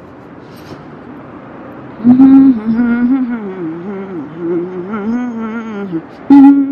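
A woman humming a slow, wandering tune for about four seconds, starting about two seconds in, with a short louder hum near the end, over low street background noise.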